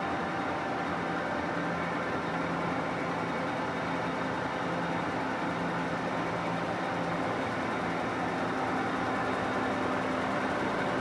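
Steady hum of running workshop machinery, holding several steady tones at an even level.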